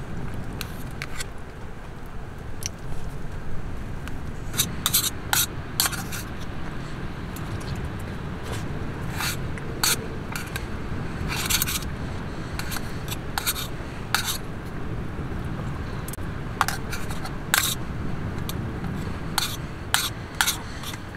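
Metal chopsticks clicking and scraping against an aluminium mess tin as rice is picked up and eaten, in irregular sharp clicks and short scrapes over a steady low background noise.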